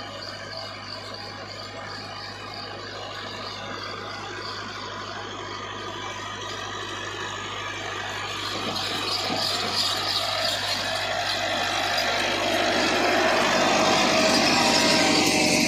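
Tractor diesel engine running under load while pulling a plough, growing steadily louder as it approaches and passes close by.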